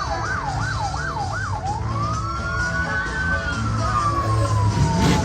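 Emergency vehicle siren: about five quick up-and-down yelps in the first second and a half, then one long wail that rises slowly and falls away, over a steady low rumble.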